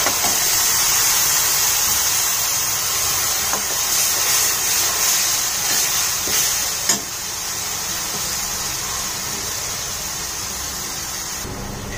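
Wet tomato and green chilli paste sizzling loudly in hot butter in a kadhai, a steady hiss. There is one sharp tap of the steel ladle about seven seconds in, after which the sizzle settles a little quieter.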